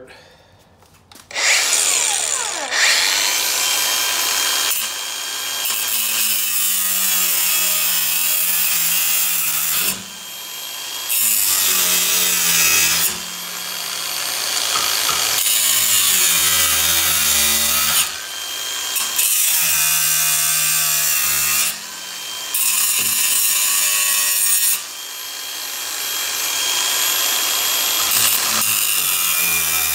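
A Makita angle grinder with a cut-off wheel spins up about a second in, then cuts through a rusty steel frame leg clamped in a vise. The loud grinding drops off briefly five times as the disc eases out of the cut, then comes back up.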